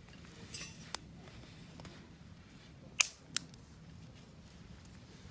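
A few sharp clicks or snaps over a quiet background: a small one about a second in, then two loud ones about a third of a second apart near the middle.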